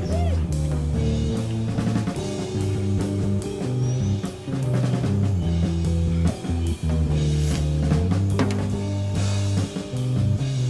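Background music: a band track with a steady drum beat over a moving bass line.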